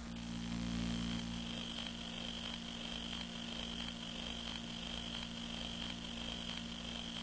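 Low, steady electrical hum with background hiss, with no music or voice.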